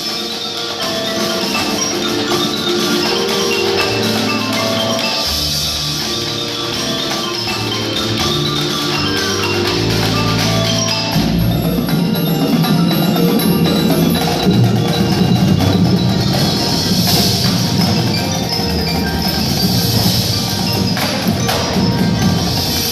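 Live ensemble music with mallet percussion and chimes over held low notes, growing fuller and louder about eleven seconds in.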